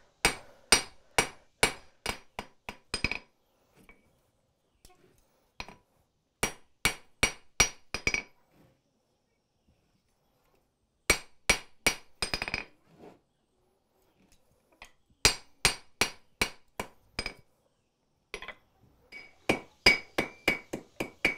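Hand hammer striking red-hot steel stock on an anvil in runs of quick blows, about two to three a second, with short pauses between the runs; each blow clinks and rings. The bar is struck half on, half off over the anvil's corner to neck down the end.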